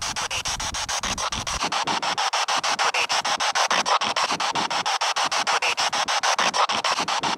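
Spirit box (SB7) sweeping through radio frequencies: a loud, choppy hiss of static broken about nine times a second, with brief low fragments between the sweeps.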